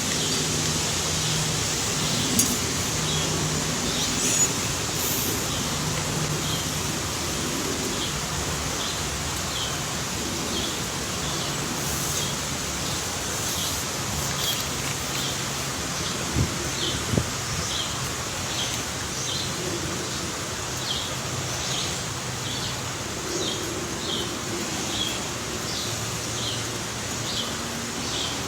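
A bird repeating a short, high call about once a second over a steady outdoor hiss. Two knocks sound close together just past the middle.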